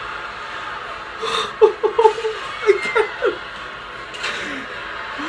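A man's nervous laughter: a quick run of short chuckles about a second and a half in, muffled behind his hand, led in by a sharp breath.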